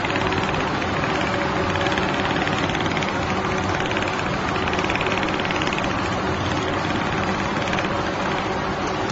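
Industrial computerised template sewing machine stitching at speed: a steady mechanical clatter with a fast, even rhythm of needle strokes while its rotating head and the template carriage travel along the pattern.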